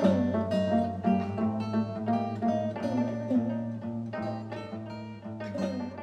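Instrumental background music: a plucked guitar playing a melody in a steady rhythm over held low notes.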